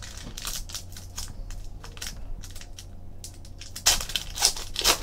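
Trading cards being flipped and slid against one another in the hands, with crinkling of their plastic wrapping; a quicker, louder run of card swishes about four seconds in.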